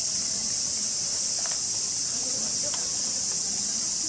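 Steady, dense high-pitched chorus of summer insects, with a couple of faint clicks in the middle.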